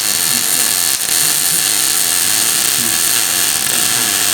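Power drill running steadily at full speed, a continuous high whine with no pauses.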